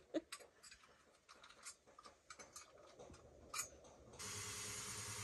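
Faint scattered clicks and rattles of a cordless drill and its hole saw being handled, with one sharper click near the end. About four seconds in, a steady faint hiss with a low hum starts suddenly.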